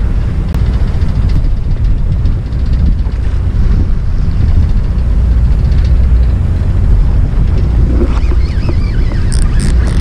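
Steady low rumble of wind buffeting the microphone aboard a small fishing boat at sea. Near the end come a few sharp clicks as gloved hands take hold of the baitcasting reel.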